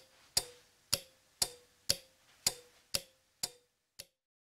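Relays on a MASSO TTL relay module clicking about twice a second as they switch the lamps of a tower light. Each click has a brief ring, and the last, about four seconds in, is fainter.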